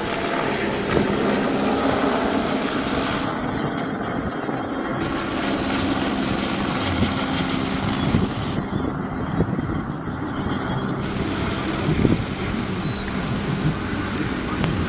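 Eurocopter AS350 B2 Esquilo helicopter running at flight power: steady rotor noise and the whine of its single turboshaft engine as it passes low overhead and climbs away after takeoff.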